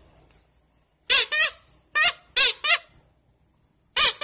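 A plush toy being squeezed, giving several short squeaky, honk-like calls in three quick clusters.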